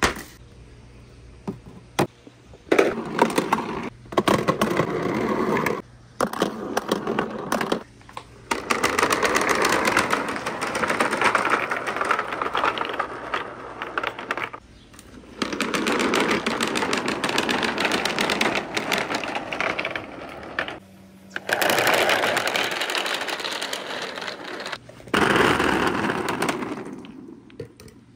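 Dozens of plastic balls rolling and clattering down a sloping pegboard ramp between wooden rails, knocking into one another as they pile up. The rattle comes in several runs of a few seconds each, with short breaks between them.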